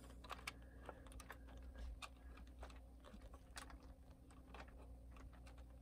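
Faint, irregular light clicks and taps as fingers tuck servo wires and their plug into the plastic chassis of a toy RC truck.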